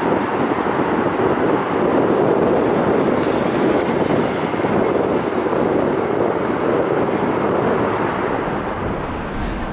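Jet airliner passing low overhead on its landing approach: a steady rushing engine noise, fullest and brightest between about three and six seconds in.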